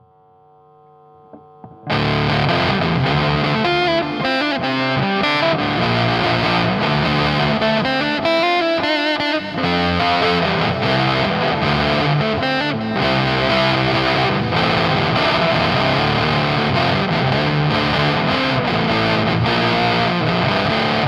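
Electric guitar played through a Dolamo D-2 fuzz pedal, with reverb and delay added. A faint ringing note opens, then about two seconds in loud, heavily fuzzed riffing starts and continues.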